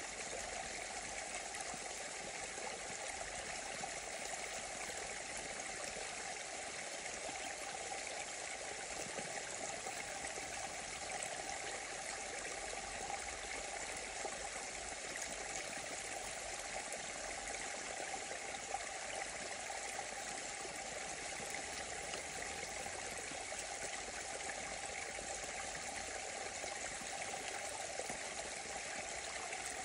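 Small muddy woodland stream flowing steadily down a gully, the water splashing over stones and tangled debris in a continuous, even rush.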